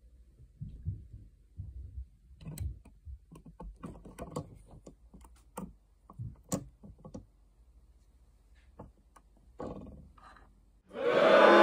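LEGO minifigure plastic parts clicking and snapping as a cape and head are fitted onto a torso by hand: a scatter of irregular small clicks. Music starts loudly about a second before the end.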